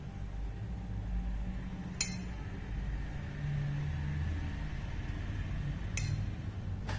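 A steel spoon clinking sharply against a cast-iron appe pan three times as oil is dribbled into its cups, over a steady low rumble.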